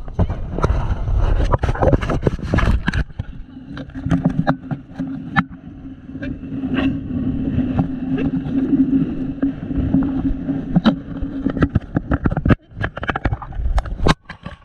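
Motorboat engine running with a steady hum under wind rushing on the microphone, with scattered sharp knocks. The engine hum cuts out about two seconds before the end.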